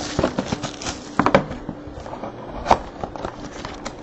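Trading cards and their packaging being handled: scattered light clicks and rustles, with a few sharper knocks a little over a second in and again near the middle.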